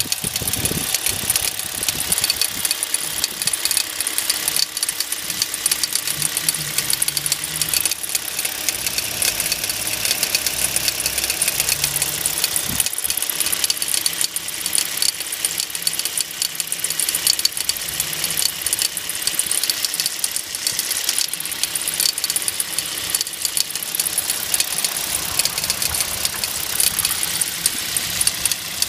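Hyundai Solaris engine running with a fast, even knocking throughout: an engine knock, the fault that the owner is recording.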